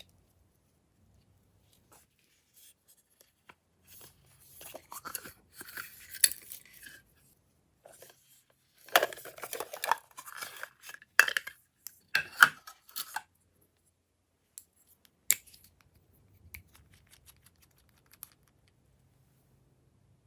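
Glossy slime being worked by hand, giving sticky crackling and tearing noises in two bouts, from about four to seven seconds and from nine to thirteen seconds in. A single sharp click follows a couple of seconds later.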